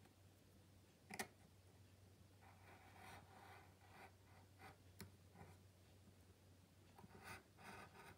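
Faint scratching of a craft blade cutting through paper in short strokes, with a couple of light clicks.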